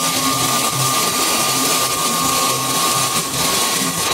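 Woodworking power tool running steadily in a timber workshop: a loud, even hiss with a constant high tone.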